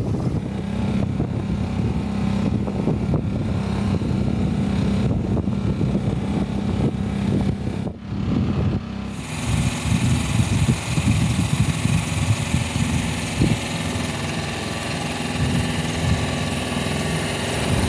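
A small boat engine running at a steady speed, a constant hum with overtones. About eight seconds in the sound breaks off and a second stretch of steady engine running follows, with more hiss in it.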